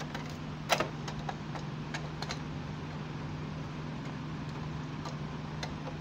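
Scattered light clicks and knocks as hands and a screwdriver work on a Brother sewing machine's body at its base, one sharper knock under a second in, over a steady low hum.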